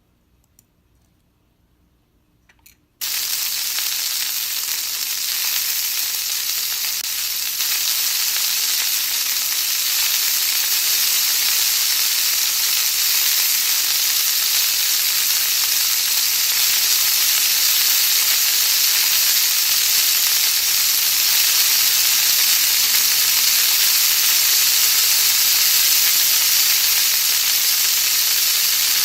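Sizzling sound effect of squid grilling on a hot plate. It cuts in suddenly about three seconds in after a few faint clicks, then hisses steadily.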